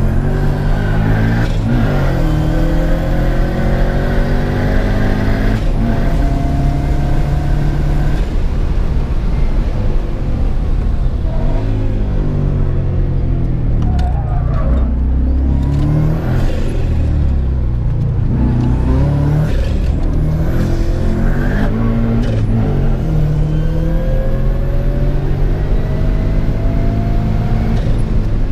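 Volkswagen Beetle race car's engine heard from inside the cabin under hard driving, its pitch repeatedly rising as it revs up and dropping sharply at each gear change or lift.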